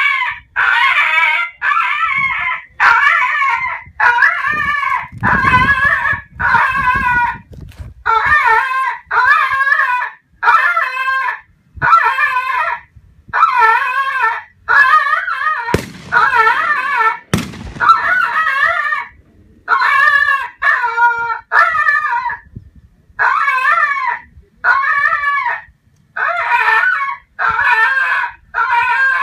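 Recorded rabbit distress squeals played loud through a homemade electronic predator caller's 30-watt horn speaker. It is a continuous string of wavering, high cries, each under a second, repeating about once a second with short gaps between them.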